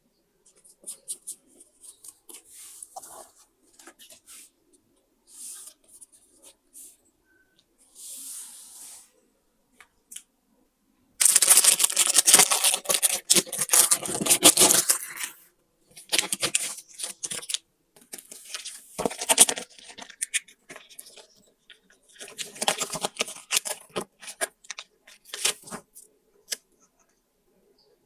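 Close-miked paper handling for a scrapbook: light rustles and taps at first, then a loud, dense stretch of paper noise about eleven seconds in, followed by several shorter bursts.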